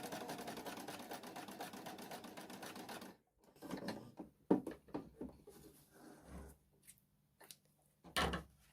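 Elna 120 domestic sewing machine running, sewing a zigzag stitch with a rapid, even stitching rhythm for about three seconds, then stopping abruptly. Scattered clicks and knocks follow, with a louder rustle near the end.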